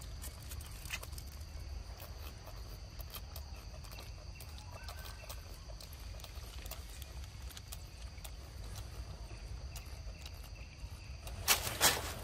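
Small scattered clicks and crunches of a young macaque biting and chewing a green fruit, over a low rumble and a steady high hiss. Near the end come two loud, sharp crackles about half a second apart.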